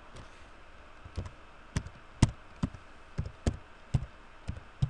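Computer keyboard keys pressed one at a time at an unhurried pace, about two clicks a second, as a string of digits is typed.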